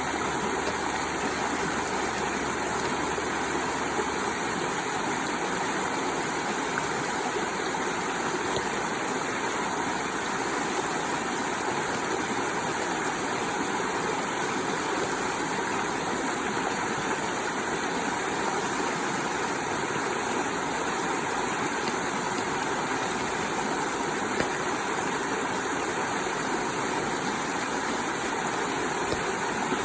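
Waterfall pouring steadily, an even rushing of falling water with no change in level.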